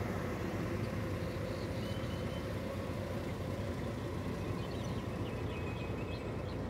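Car moving slowly with the window down: steady engine and road noise.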